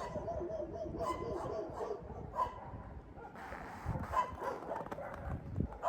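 A dog whining with a wavering high note, then giving several short yips.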